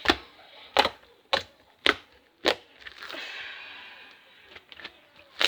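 Very sticky slime being squeezed and pulled apart by hand, giving sharp clicking pops every half second or so, then a softer drawn-out crackle about three seconds in.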